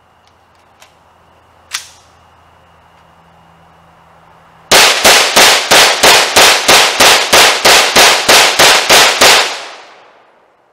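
About fifteen shots fired in quick succession from a semi-automatic firearm, roughly three a second, starting nearly five seconds in; after the last one the echo fades over about a second. A single sharp click comes earlier, near the two-second mark.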